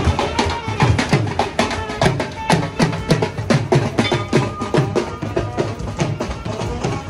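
Street brass band playing on the march: drums beat a quick, steady rhythm under a trumpet melody.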